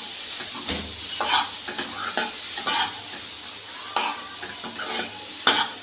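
A metal spoon stirring black peas into spice masala frying in oil in a kadhai. The masala sizzles steadily, with irregular scrapes and knocks of the spoon against the pan.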